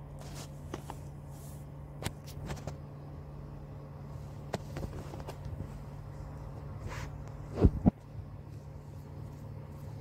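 Steady low hum with scattered light clicks, and a loud double knock about three-quarters of the way through.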